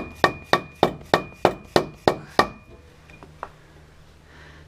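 About nine quick hammer taps, roughly three a second, on the Honda Pioneer 1000's A-arm mounting bracket, each with a light metallic ring. The taps spread the bracket, which is bent from an impact, so the new A-arm will fit. The tapping stops about two and a half seconds in.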